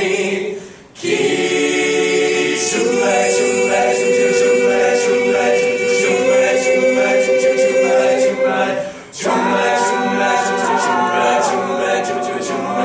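Male a cappella group singing in close harmony, holding sustained chords, with brief breaks about a second in and again about nine seconds in.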